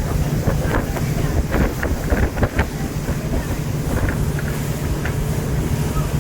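Motor boat's engine running steadily at sea with a low drone, and wind buffeting the microphone.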